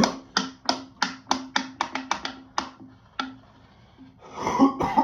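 A quick run of about a dozen sharp taps or clicks over three seconds, uneven in spacing and thinning out toward the end, then a short rough throat sound near the end.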